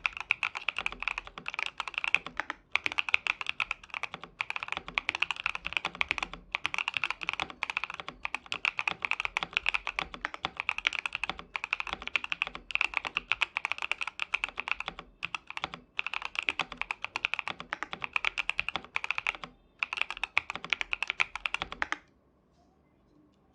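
Fast, continuous typing on a KBDFans KBD67 Lite mechanical keyboard with factory-lubed Xinmeng Cuibo tactile switches and a POM plate: dense clacks with brief pauses. The typing stops near the end.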